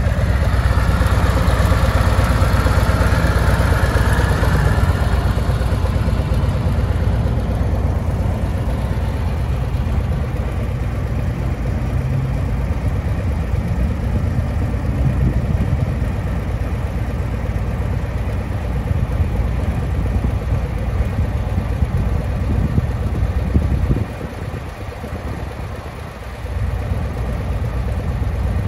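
Harley-Davidson Street Glide's Milwaukee-Eight 117 V-twin idling steadily, briefly quieter near the end.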